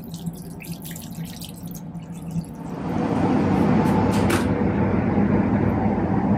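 Water from a washbasin tap splashing over a hand, over the steady hum of a high-speed train. About two and a half seconds in, the train's running rumble grows much louder as the washroom door is opened, with a couple of sharp clicks from the door handle about four seconds in.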